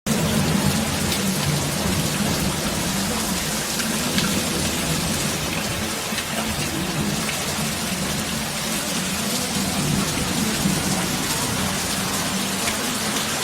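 Heavy rain pouring down, a loud, steady, dense hiss of drops coming down "like buckets".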